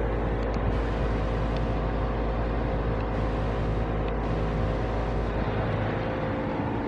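1989 Carrier Tech2000 cooling-only air-conditioner condensing unit running steadily: its condenser fan is moving a lot of air over a steady compressor hum.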